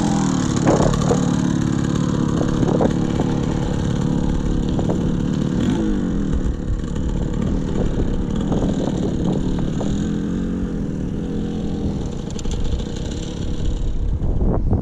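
Dirt bike engines running close by, the revs rising and falling as one bike pulls away and climbs a steep dirt hill, with rumble from wind or the bike on the microphone.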